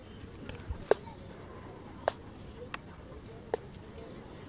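A few sharp clicks, spaced about a second apart over a steady low outdoor background; the first is the loudest.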